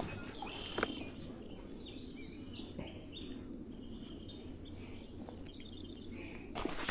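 Small birds chirping and singing over a steady low background rush, with a sharp click just under a second in and another near the end.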